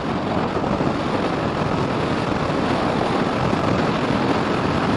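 Yamaha MT-15 motorcycle ridden at speed in sixth gear: a steady rush of wind and road noise on the bike-mounted camera's microphone, with no distinct engine note standing out.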